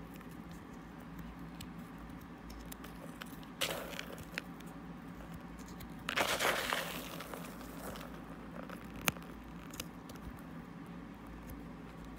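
Fingers and fingernails raking and crushing loose mothball crystals, a gritty crackle with scattered small ticks. A short crunch comes about three and a half seconds in, and a longer, louder crunch lasts for about a second and a half just past the middle.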